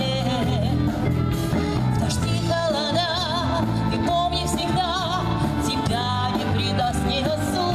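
Wind band of saxophones, trombones and clarinets playing a song, with a woman singing into a microphone in a wide, wavering vibrato over the band.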